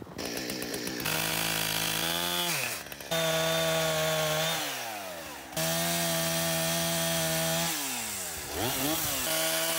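Chainsaw running at high speed while cutting through small tree trunks, its pitch sliding down three times as the throttle is let off and climbing back as it is opened again, with abrupt jumps where short clips are spliced together.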